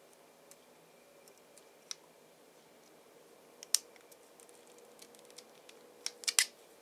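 Scattered small metallic clicks of long-nose pliers gripping and bending a small metal crimp cable terminal, with a louder cluster of clicks near the end, over a faint steady hum.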